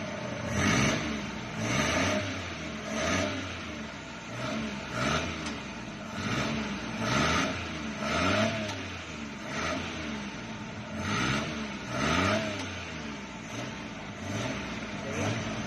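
Engine being revved over and over, its pitch rising and falling back about once a second. It is a hard-starting engine that the men working on it put down to worn piston rings and a worn cylinder liner.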